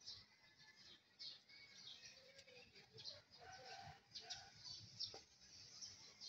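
Faint birdsong: a steady string of short, high chirps, with a few lower calls about halfway through.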